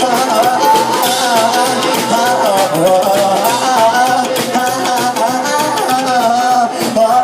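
Live band playing an up-tempo song with a steady beat, a wavering pitched lead line carrying on between the sung chorus lines.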